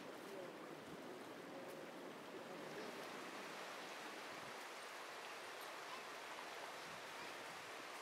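Stream water rushing over rocks: a steady rush of white water.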